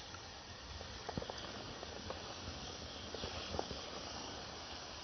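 Wood campfire burning: a steady hiss with scattered small crackles and pops, the sharpest about a second in and again past three seconds.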